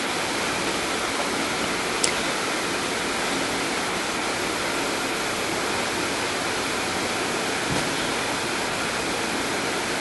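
Steady, even hiss, with one sharp click about two seconds in and a faint tick near the end.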